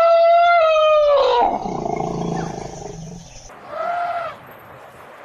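Mammoth sound effect: a loud, pitched animal call that holds steady for about a second and a half, then slides down in pitch. About four seconds in and again at the end come two short, fainter calls that rise and fall.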